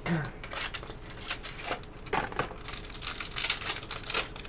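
Irregular crinkling and rustling of trading-card packaging being opened and handled, with cards handled in between.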